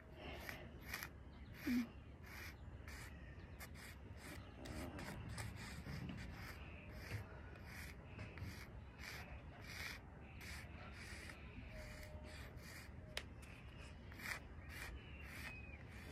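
Sidewalk chalk scraping across pavement in quick, irregular back-and-forth strokes, about two a second, as a large area is coloured in; faint throughout.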